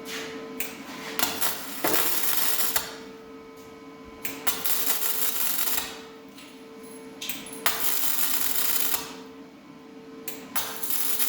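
Welder crackling in bursts of one to two seconds, about four in a row with short pauses between, as a sheet-metal patch panel is stitch-welded into a car body. A faint steady hum runs underneath.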